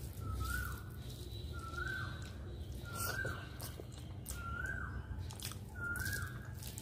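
Fingers squishing and mixing rice with curry on a metal plate, in soft wet strokes. A short rising whistled call repeats steadily about every second and a half.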